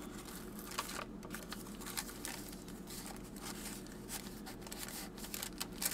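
Paper and card rustling and crinkling as the pages, writing cards and pockets of a handmade junk journal are handled and turned: soft, irregular rustles with light ticks and taps.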